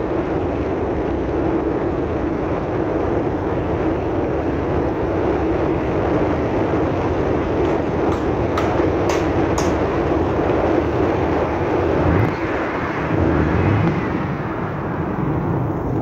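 Steady road noise of a vehicle travelling along a rough, unfinished road, with wind rumbling on the microphone. A few sharp clicks come about eight to ten seconds in.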